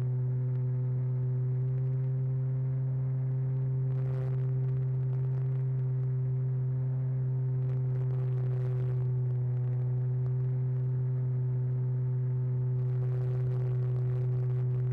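Steady, even hum of a model airplane's motor and propeller in cruise, heard from the onboard camera. Brief rushes of wind noise come about four seconds in, about eight seconds in, and again near the end.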